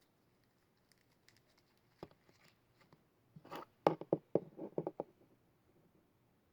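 Hands working a clear slime: a string of small sticky clicks and taps, thickest and loudest about three and a half to five seconds in.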